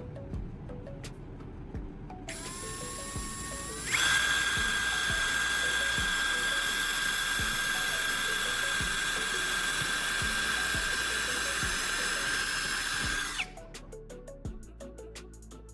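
Small electric power tool's motor starting up with a rising whine, running at a loud, steady high pitch for about nine seconds, then switching off, over background music.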